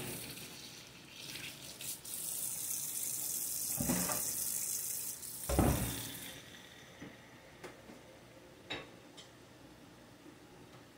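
Kitchen tap running into the sink for a few seconds, with two knocks, then shut off about six seconds in; a few faint clicks follow.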